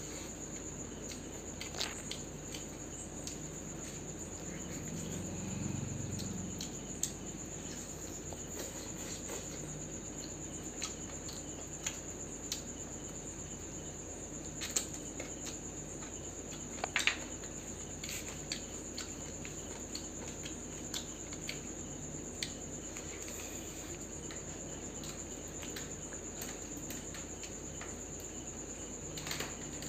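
Crickets trilling steadily in a continuous high-pitched drone, with scattered faint clicks and taps now and then.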